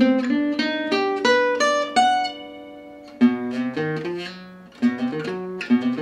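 Gypsy jazz acoustic guitar playing a fast single-note jazz line, picked notes in quick runs. About two seconds in one note is left ringing and fading for a second before another quick run starts.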